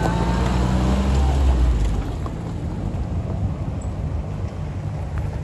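An engine running with a low, steady drone, loudest for the first two seconds and then easing off.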